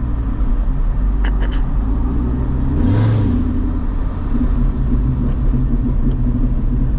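Straight-piped C6 Corvette's LS2 V8 running under way, heard from inside the cabin: a deep, steady exhaust drone with a few sharp exhaust pops scattered through, and a brief louder swell about three seconds in. The driver wonders whether the popping comes from a burble tune.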